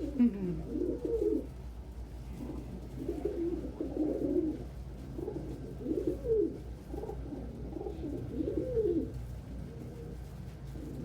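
Domestic pigeons cooing, several rounds of low, wavering coos one after another.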